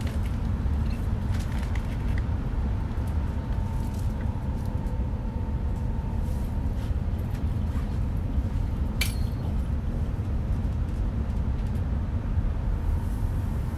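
Cabin noise of an E5-series Shinkansen running along the line: a steady low rumble, with a faint thin whine during the first few seconds and one sharp click about nine seconds in.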